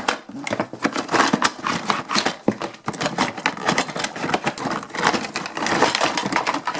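Plastic toy track pieces clacking and scraping against cardboard packaging as they are pulled out of a toy box. It is a dense run of clicks and knocks with crinkling mixed in.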